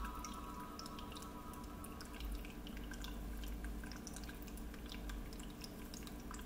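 Faint dripping and trickling of aquarium water, with scattered small ticks over a steady low hum.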